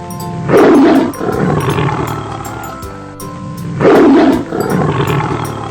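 Tiger roaring twice, each a loud roar trailing off into a rumbling growl, over light background music.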